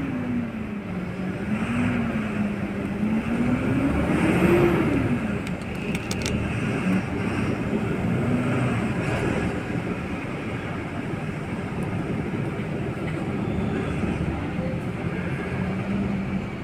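Heavy diesel engine running, its pitch rising and falling as it is revved up and back down, loudest about four and a half seconds in.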